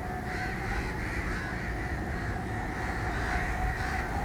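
Repeated crow-like cawing over a steady low rumble, the calls recurring about every half second.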